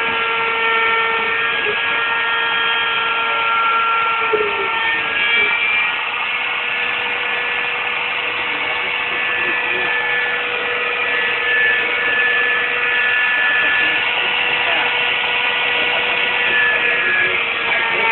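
CNC router running, its motors whining with several steady tones that shift in pitch now and then as the machine moves, over a steady noisy hiss.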